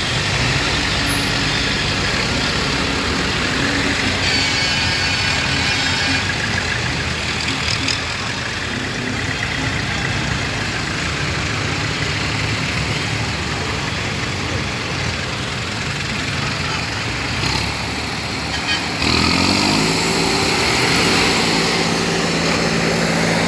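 Diesel engines of farm tractors running as they drive slowly past in a procession. Near the end a louder, steady pitched sound joins in.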